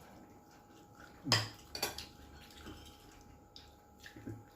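Cutlery and dishes clinking during a meal: a few scattered sharp clinks, the loudest about a second in.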